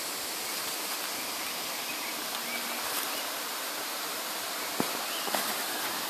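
Steady rush of running water from a stream or waterfall out of sight, an even hiss with no change in level, with a couple of faint clicks near the end.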